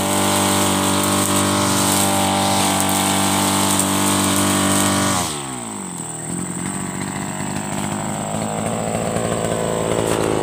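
Mitsubishi TB43 backpack brush cutter's two-stroke engine running at full throttle, then falling away to idle about five seconds in as the throttle is released, and idling on.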